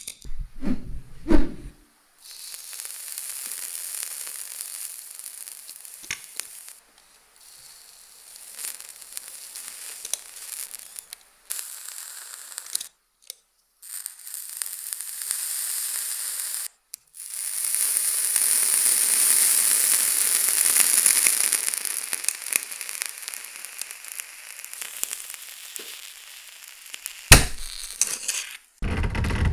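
Heated knife blade melting into hard purple plastic, a steady sizzling and crackling hiss that swells about two thirds of the way through. A few knocks come at the start, and a single sharp click near the end.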